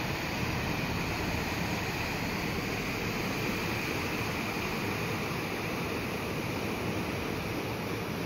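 Steady rushing of a small river swollen by heavy rain, flowing high and brown along its concrete channel.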